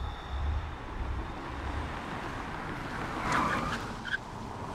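Volvo police car driving up and pulling to a stop, its engine and tyres giving a steady low rumble on the road, with a brief squeal of brakes or tyres about three seconds in as it slows.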